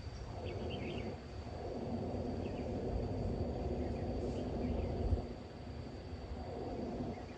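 Road traffic passing, swelling and fading, over a steady high-pitched insect drone, with a few short bird chirps.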